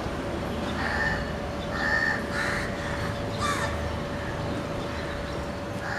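A few short, harsh bird calls, clustered in the first few seconds, over a steady faint hum.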